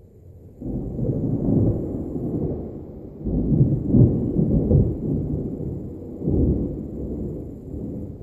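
Thunder rumbling: a roll that breaks in suddenly about half a second in, swells twice more, and then slowly dies down.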